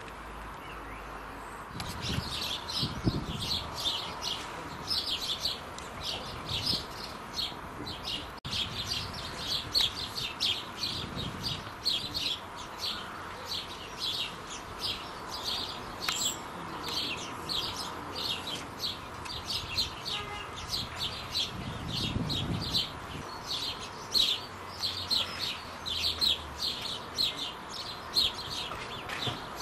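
House sparrows chirping: a steady run of short, high chirps, several a second, starting about two seconds in and going on without a break.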